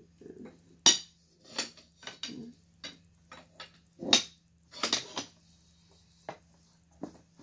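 Metal chair tubes clinking and knocking against each other as the frame pieces are handled and pushed together: a string of separate sharp clicks, the loudest about a second in and again about four seconds in.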